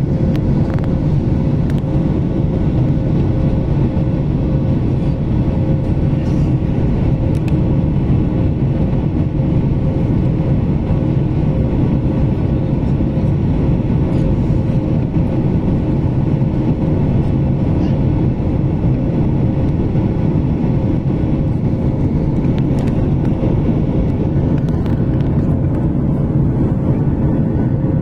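Steady drone of a Boeing 737 MAX's CFM LEAP-1B turbofan engines and the rushing airflow, heard inside the cabin as the jet climbs after takeoff, with a steady hum running through it.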